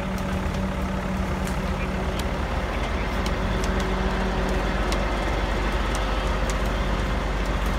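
Heavy truck diesel engine running steadily, with scattered light clicks over it.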